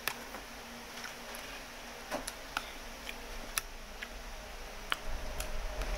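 Close-up noodle eating with a spoon and fork in a bowl: a run of sharp, irregular clicks, about eight in six seconds.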